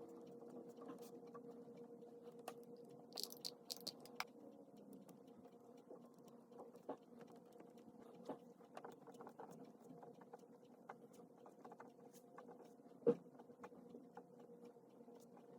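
Quiet handwriting on paper: small scattered pen ticks and short scratches, a brief run of sharper scratching about three seconds in, and one louder knock on the desk near the end, over a steady faint hum.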